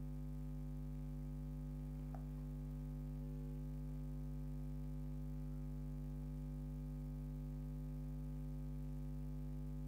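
Steady low electrical hum, like mains hum picked up in the recording, with a faint tick about two seconds in.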